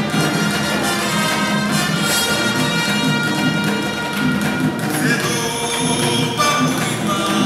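Music with instruments and singing, steady and loud.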